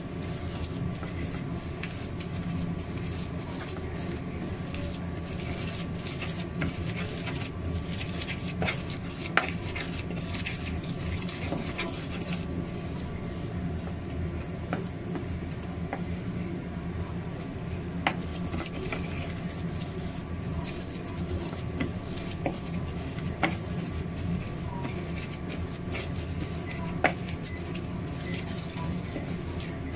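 Fresh corn kernels being crushed and rubbed by hand on a wooden plate: soft, steady mashing with a few sharp knocks against the wood, over a steady low hum.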